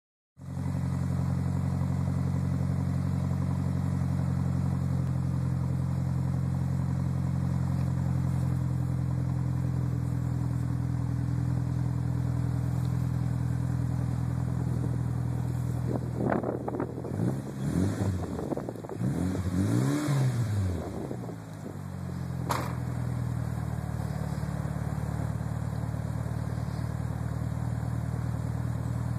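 Turbocharged car engine idling steadily, revved up and down several times about halfway through, with a sharp click just after the revving before it settles back to idle. The owner suspects a bad turbo.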